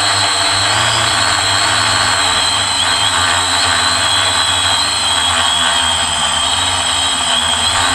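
A quadcopter's electric motors and propellers run with a steady whine, heard from a camera mounted on the drone, over a rush of air. The pitch wavers slightly as the motors change speed while it flies.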